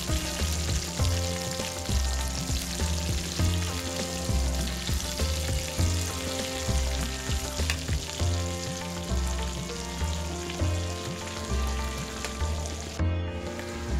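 Whole fish deep-frying in a metal kadai of hot oil, the oil sizzling steadily as a ladle works it over the fish, under background music with a steady bass beat. The sizzle cuts out briefly near the end.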